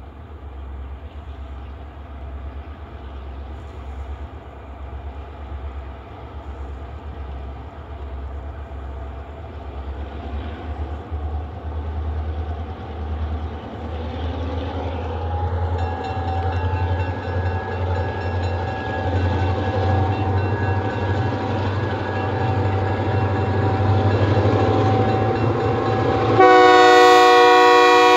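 Great Lakes Central diesel freight train approaching, the low rumble of its locomotive engines growing steadily louder. Near the end the lead locomotive's air horn starts blowing, loud and sustained, a chord of several tones.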